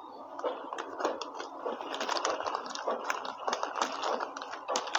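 Paper rustling with many small irregular taps and clicks as sheets and small objects are handled on a desk.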